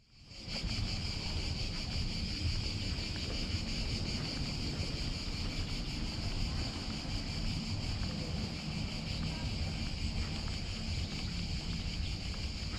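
Wind buffeting the microphone as a steady low rumble, with a steady high hiss over it; it fades in from silence at the start.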